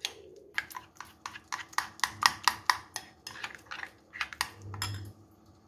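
A metal spoon stirring a thin flour batter in a glass bowl, clinking against the glass about four times a second, then stopping about five seconds in.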